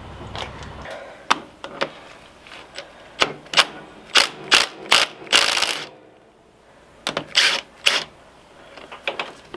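Irregular metallic clicks, knocks and clanks of hand tools on a motorcycle's front sprocket and its nut, with one longer scrape a little past the middle. This is the gearbox put in gear to hold the shaft while the sprocket is worked loose.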